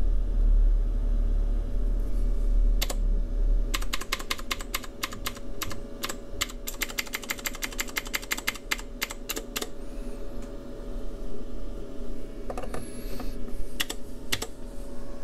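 Rapid clicking of the push-button arrow keys on an Amplitrex AT1000 tube tester's keypad, in quick runs of several presses a second and a few more presses near the end, over a steady hum.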